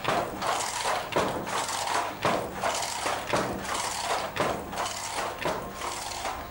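Wooden hand loom in use: irregular wooden knocks and clacks, about two a second, over a steady hiss.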